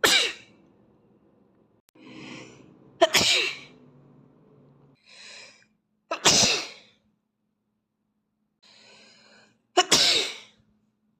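A boy sneezing four times from allergies, a sharp loud sneeze about every three seconds. Before each of the last three there is a quieter intake of breath.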